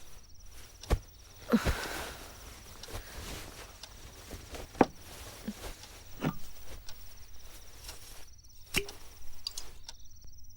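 Steady high cricket trill, with several sharp knocks and clicks scattered through it; the trill cuts off near the end.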